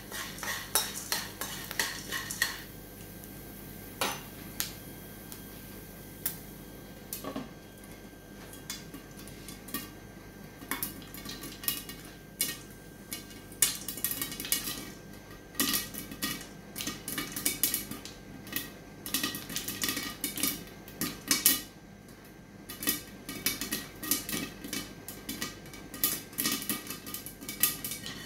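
Spoon stirring popcorn kernels in a non-stick frying pan, then kernels popping under a glass lid: sharp pops and kernels hitting the lid. The pops are few at first and come thick and fast from about ten seconds in.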